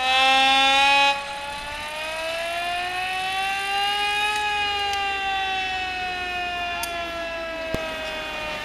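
A siren wailing, its pitch rising slowly for about four seconds and then falling slowly. A louder blare comes in the first second, and a single sharp click is heard near the end.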